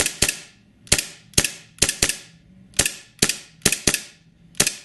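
WE Baby Hi-Capa 3.8 green-gas blowback airsoft pistol firing a quick string of about a dozen shots, two or three a second, each a sharp crack of gas and the slide cycling. The blowback is hard.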